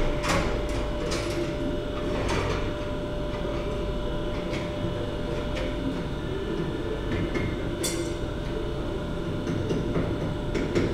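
Forge blower running steadily under a fired-up smithing forge, a constant hum with a low rumble, broken by a few sharp metallic clinks of tools being handled.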